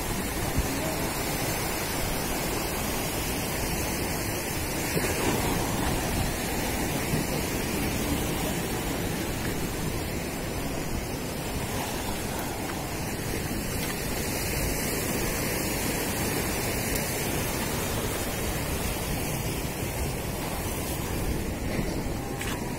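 Sea surf breaking and washing against the rocks of a breakwater: a steady rushing noise.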